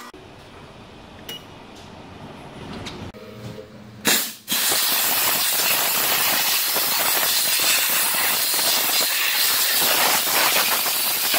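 Monair hybrid steam cleaner's wand spraying steam into an engine bay: a loud, steady hiss that starts suddenly about four seconds in, just after a short spurt. The first four seconds are fairly quiet.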